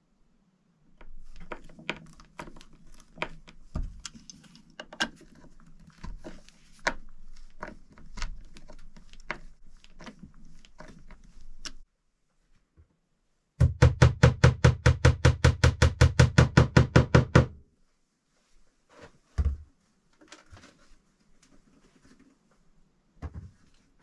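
A hammer driving a nail into a log wall: a quick, even run of about twenty blows lasting about four seconds, starting about halfway through. Before it come scattered knocks and handling clicks, and a couple of single knocks follow.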